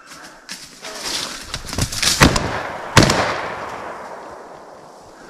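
Two shotgun shots about three quarters of a second apart, the second echoing away over a couple of seconds, after a rising rustling noise.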